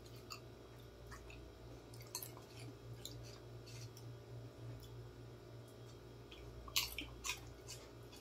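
Faint crunching and chewing of crisp potato snack chips: irregular short crunches, with a louder cluster of crunches near the end. A low steady hum runs underneath.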